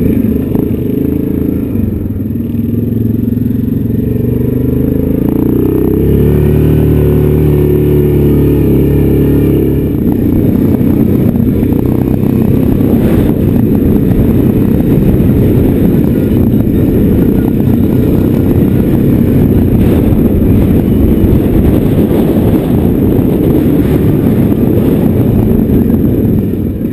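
Yamaha Grizzly 700 ATV's engine running under way, its pitch climbing over the first several seconds as it speeds up, then holding steady. From about ten seconds in it turns into a rougher, noisier rumble as the quad rides the rocky track.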